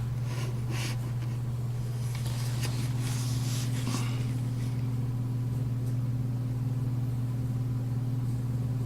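A steady low hum, with faint scrubbing of a primer dauber being worked over PVC pipe during the first four seconds or so.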